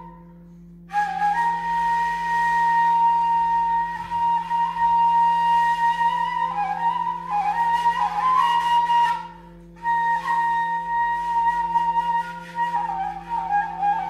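Armenian blul, an end-blown wooden flute made by Galust Galstyan, playing a slow solo melody of long held notes with quick ornamental turns. The playing stops briefly for breath at the very start and again about nine seconds in.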